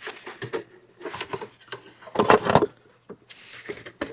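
Scattered clicks and rustles of hands working the plow headlight's wiring into place, with a louder rattle about two seconds in.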